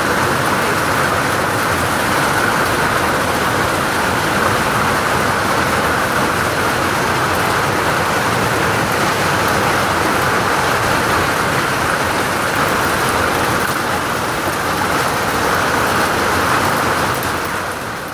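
Hailstorm: hail and heavy rain pelting pavement and a car in a dense, steady hiss with fine clicking of stones, fading out near the end.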